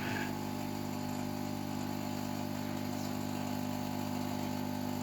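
A steady, unchanging low machine hum made of several constant low tones.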